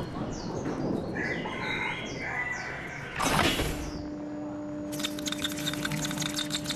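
Sound design for an animated film: quick, high falling chirps or squeaks for the first few seconds, then a short whoosh. After that comes a steady low hum, joined by rapid crackling ticks near the end.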